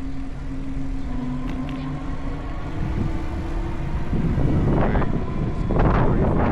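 Wind buffeting the microphone of a handlebar-mounted action camera on a moving bike, growing louder from about four seconds in. A steady low hum runs under it in the first half.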